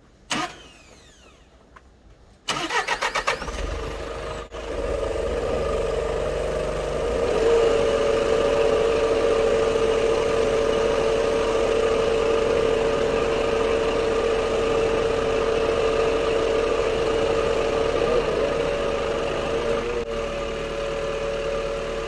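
Sky truck's engine speeds up about two and a half seconds in, then runs steadily with a high, even whine while it drives the hydraulic pump that moves the boom and platform.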